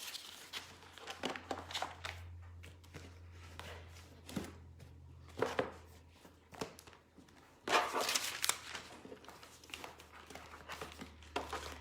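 Light clicks, taps and rustling of handling close to the microphone, with a louder rustle about eight seconds in, over a steady low hum.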